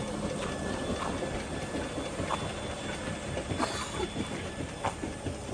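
Steady mechanical drone with rushing water from the motor pump draining the paddy channel, with a few faint clicks spread through it.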